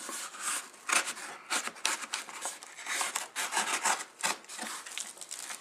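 A cardboard shipping box being opened by hand: an irregular run of scraping and rubbing of cardboard and packing tape.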